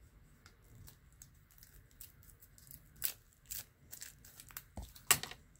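Plastic shrink-wrap being cut and torn off an art crayon with a knife. Scattered crinkles and scrapes, with a sharper rip about three seconds in and the loudest one near the end.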